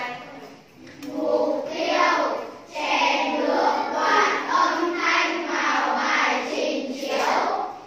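A group of young children's voices sounding together in chorus, in rising and falling phrases, starting about a second in and stopping just before the end.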